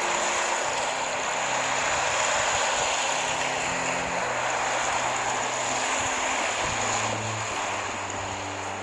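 Steady rushing road and wind noise of a vehicle on the move, with low held notes underneath that change pitch every second or so.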